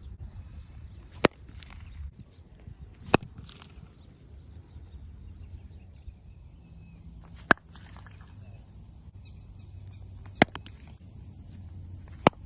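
Five sharp cracks of a cricket bat striking a ball, a few seconds apart, as the repaired bat is tested.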